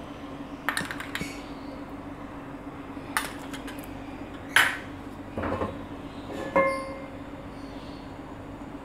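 A metal fork tapping and scraping in a nonstick frying pan as it spreads melted fat, with scattered knocks and clinks of the pan being handled. One short ringing clink comes about two-thirds of the way through. A steady low hum runs underneath.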